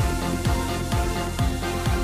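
Electronic background music with a steady beat of about two kick-drum strokes a second.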